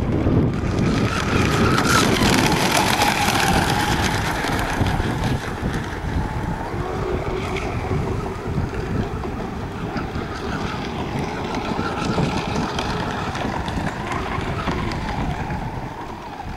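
Radio-controlled racing boats running at speed, their motors' high whine rising and falling in pitch as they pass, over heavy wind rumble on the microphone.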